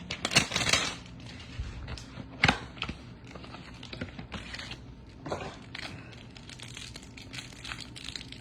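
Sports trading cards being handled and slid across one another, irregular rustling strokes with a few sharp clicks, the loudest near the start.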